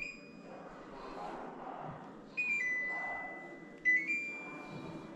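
Split AC indoor unit beeping as it takes remote commands: two short electronic chimes, about two and a half and four seconds in, each stepping quickly between a couple of notes and then holding one tone for about a second.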